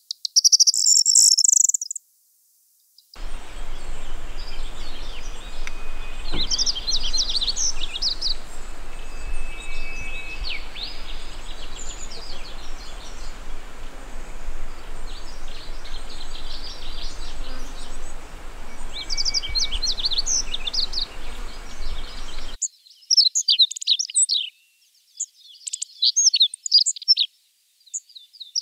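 Songs of three bunting species in turn: a brief high corn bunting jingle, then after a short gap about twenty seconds of yellow-throated bunting song phrases over a steady background hiss, then a clean recording of meadow bunting song near the end.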